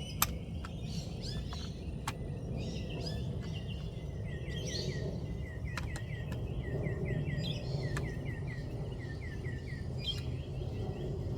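Birds chirping, with a fast run of repeated short notes in the middle and latter part, over a steady low outdoor rumble. A few sharp clicks cut in now and then.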